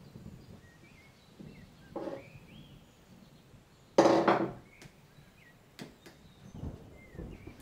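Rain-and-thunder ambience with a faint low rumble, broken by one sudden loud crack about four seconds in and a short rising squeak about two seconds earlier.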